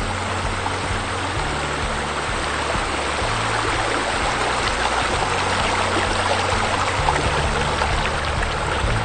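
Background music with low sustained bass notes that change every second or two, under a steady rushing hiss like running water that swells slightly in the middle.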